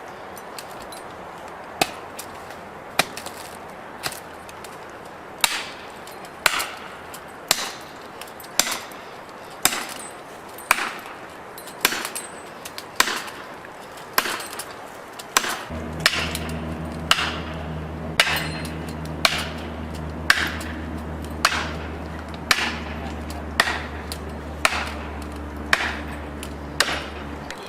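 Blows struck into wood at an even pace of about one a second, each a sharp crack with a short ring. About halfway through, a steady low engine hum starts up beneath them.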